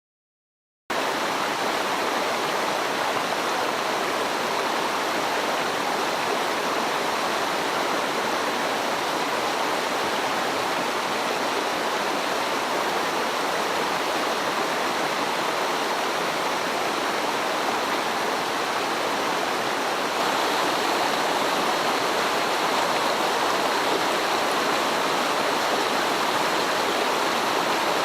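Mountain stream water rushing in a steady, even flow, starting abruptly about a second in after a moment of silence and growing slightly louder about twenty seconds in.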